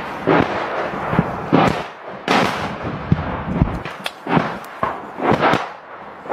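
Sharp bangs repeating irregularly, about once a second, each with a short rumbling tail.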